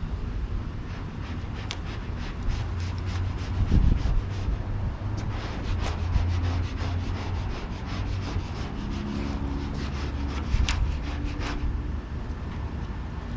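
Vinyl wrap film being rubbed and worked onto a truck's body panel: a dry rubbing sound full of small crackling ticks, which fades near the end, over a low wind rumble on the microphone.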